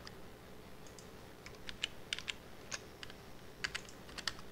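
Computer keyboard keys being pressed in short scattered clusters of clicks, with a faint steady hum underneath.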